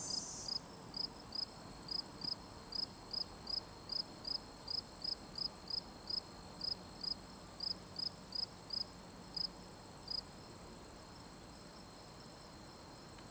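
Insects chirping: a regular, high chirp about three times a second that stops about ten seconds in, over a steady high-pitched trill from another insect. A louder, broader high trill cuts off about half a second in.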